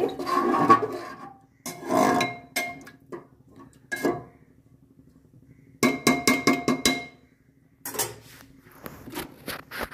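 A spatula stirring and scraping liquid curry in an aluminium pressure cooker, knocking against the pot's side in bursts with a light metallic ring, including a quick run of knocks about six seconds in.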